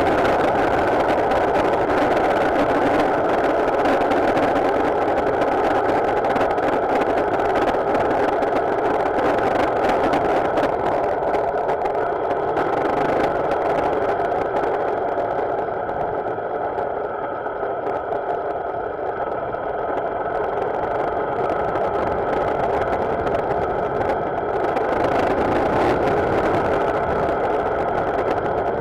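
Motorcycle engine running on the move, heard under steady wind and road noise. About halfway through, the hiss thins and the sound drops a little for several seconds, then builds again.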